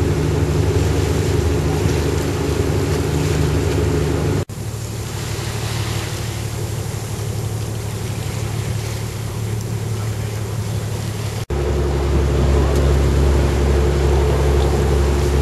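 Boat engine running steadily, with a low hum over water and wind noise. The sound drops out for an instant twice, about four and a half seconds in and again about eleven and a half seconds in, and the hum's pitch shifts after each break.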